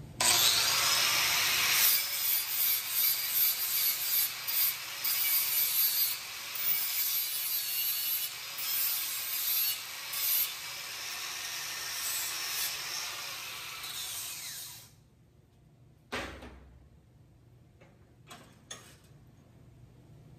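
Electric grinder spinning up and grinding a steel motor-mount piece, its grind rising and falling as it bites the metal, taking about an eighth of an inch off the middle to trim it to fit. It cuts off about fifteen seconds in, followed by a single knock and a couple of light clicks.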